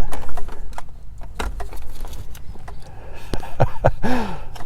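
Plastic clicking, rattling and knocking as a car center-console cup holder insert is worked and pried at its clips, which are hard to release. A short vocal sound near the end.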